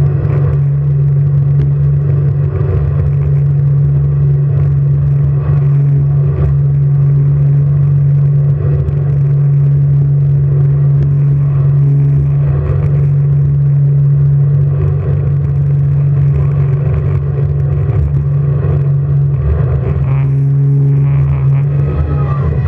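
Jet boat engine running loud and steady at one pitch, with a change in tone about twenty seconds in.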